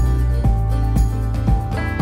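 Background music with a steady beat, about two beats a second, under held chords.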